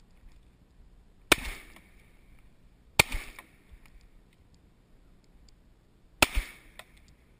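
Three shotgun shots fired over open water, the second about a second and a half after the first and the third about three seconds later, each with a short trailing echo.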